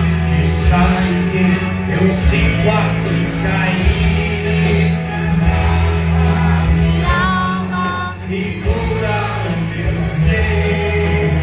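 Music with a heavy, steady bass line and a singing voice.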